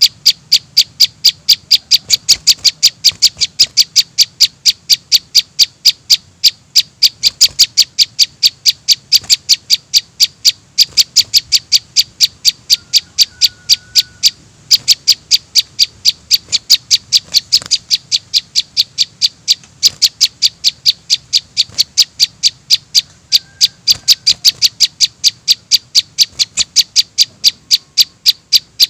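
Young prinias (prenjak chicks) calling in a rapid, unbroken series of short, high, sharp chirps, about three or four a second, with a couple of brief breaks.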